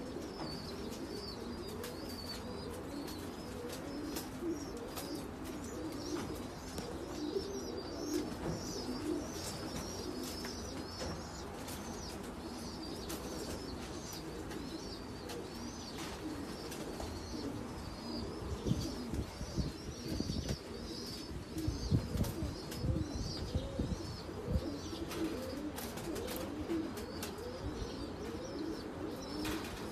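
Many pigeons cooing at once in a steady overlapping chorus, with high chirping twitters from small birds above it. A few low thumps come through about two-thirds of the way in.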